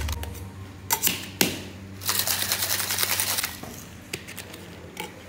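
Ice rattling in a stainless-steel shaker tin and tipped into a plastic cup: a couple of sharp clinks, then a dense clatter lasting over a second in the middle, then a few more clinks.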